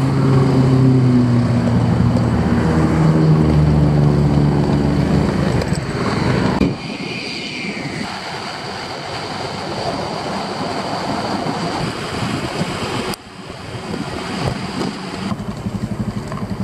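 Honda scooter's small single-cylinder engine running and revving as the bike pulls away, then a steady rush of wind and road noise while riding. The sound cuts off suddenly twice as the scenes change, and it is quieter for the last few seconds.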